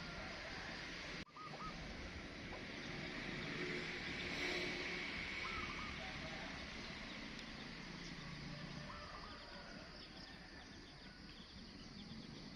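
Outdoor background noise with a few faint, short bird chirps, and a brief dropout about a second in.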